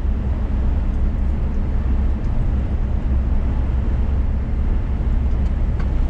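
Steady low drone of engine and tyre noise inside the cab of a Scania S500 truck cruising along the highway.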